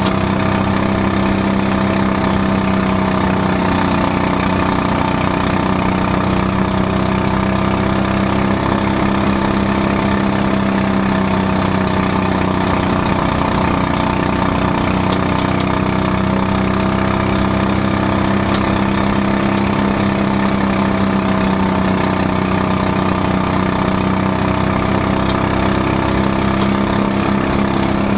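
Quarter midget race car's small single-cylinder engine running at a steady high speed, heard from inside the car's cockpit. The pitch holds nearly constant, wavering only slightly through the laps.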